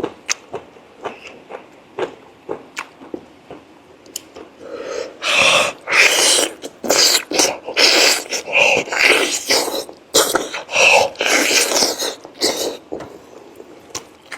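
Close-miked eating of braised pork leg: wet chewing clicks and lip smacks, then from about five seconds in a run of louder, noisy mouth sounds about two a second, slurping and sucking at the meat, that stop near the end.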